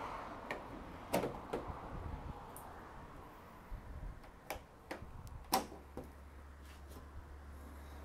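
Flush-mount bonnet catches being worked by hand to release the bonnet, a series of about six sharp plastic-and-metal clicks, the loudest a little past halfway.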